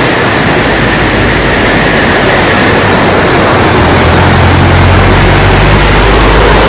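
Loud, steady rushing of a hillside waterfall stream beside the road. About four seconds in, the low drone of a vehicle engine joins it and lasts to near the end.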